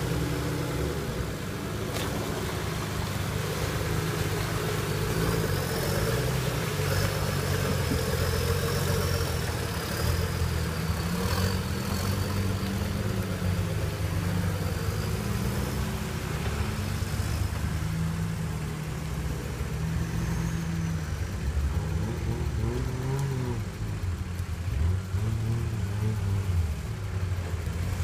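An off-road 4x4's engine working under load as it crawls through deep mud, its pitch rising and falling with the throttle, with a few quick revs near the end.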